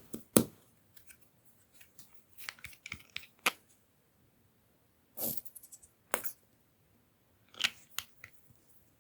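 Close-up handling noises: sharp clicks and short crackling rustles in a few separate bursts with pauses between them, the loudest click about half a second in.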